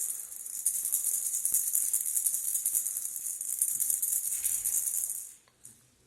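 Baby rattle toy fish shaken steadily, a fast, dense shaking rattle that stops abruptly about five seconds in.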